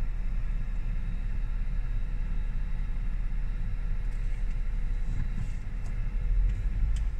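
Vehicle driving on a gravel road, heard from inside the cab: a steady low rumble of engine and tyres, swelling louder near the end with a few clicks.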